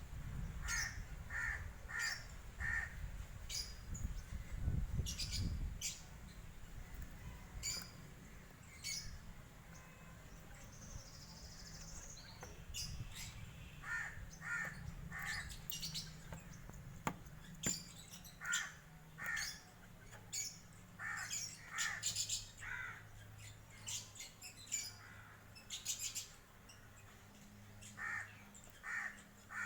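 Birds calling: short harsh calls in runs of three or four, repeated through the stretch, with thin high chirps in between. A low rumble runs under the first few seconds.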